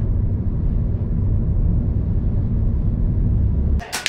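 Car driving on a paved road, heard from inside the cabin as a steady low rumble of road and engine noise. Near the end the rumble cuts off abruptly and a sharp crack follows, like an air rifle shot on a firing line.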